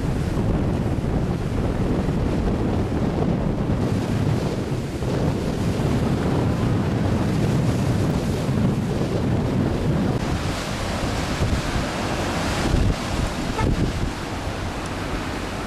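Ocean surf breaking and washing over rocks, with wind buffeting the microphone; the rush grows hissier about ten seconds in.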